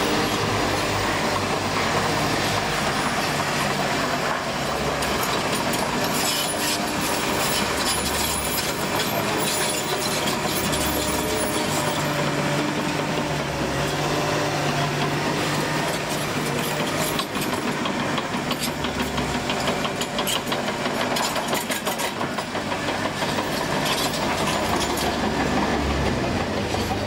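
Komatsu D61PXi-23 crawler dozer working: a diesel engine whose note rises and falls under changing load, with the steady clatter and squeal of steel tracks.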